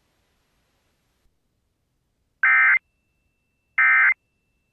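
Emergency Alert System end-of-message data bursts: after about two seconds of silence, two short, shrill digital squawks about a second and a half apart, closing the severe thunderstorm warning.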